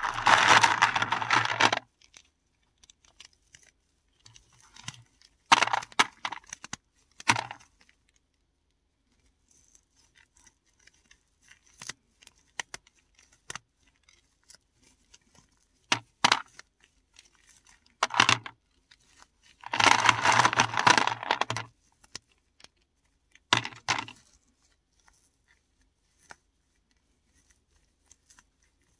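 Paradichlorobenzene mothball tablets crunched and crumbled by hand, in separate bursts, the longest at the start and about two-thirds of the way through, with faint crackling between.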